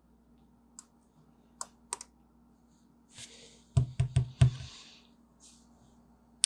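A precision screwdriver working the tiny bottom screws of an original iPhone, giving a few faint light clicks. About four seconds in comes a quick run of about five knocks, with rustling on either side, as the phone and screwdriver are set down and handled on the desk.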